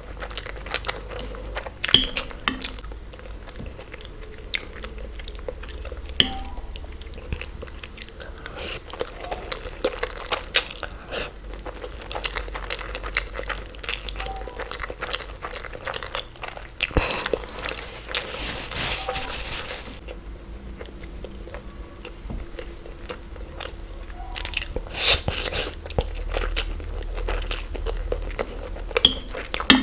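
Close-miked eating: biting and chewing with many crunchy clicks. A denser stretch of noise lasts about three seconds, a little past the middle.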